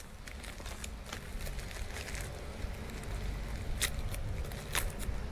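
Packaging of a wireless microphone kit being handled and opened: scattered light clicks and crinkles, with two sharper clicks near the end, over a low steady rumble.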